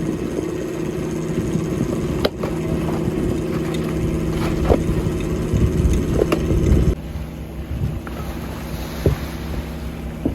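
Fishing boat's engine running with a steady hum and rumble, with a few sharp knocks. The sound changes abruptly about seven seconds in.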